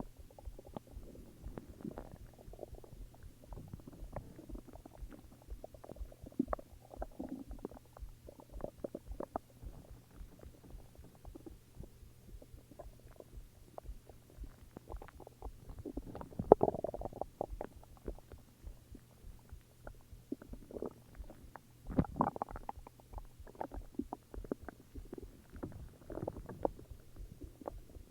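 Human stomach growling and gurgling: irregular low rumbles and crackly gurgles throughout, with louder growls a little past halfway and again about three-quarters through.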